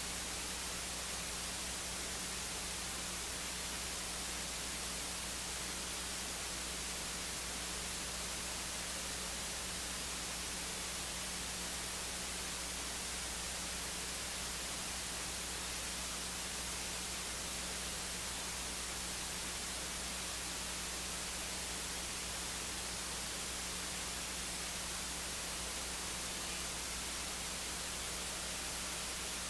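Steady hiss with a low electrical hum underneath, unchanging throughout: the noise floor of an open audio feed with no speech or music on it.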